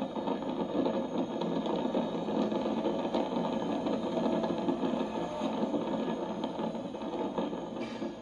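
In-car engine and road noise of a track car at speed, played back through small monitor speakers. It is a steady buzzing drone that drops off near the end as the car brakes.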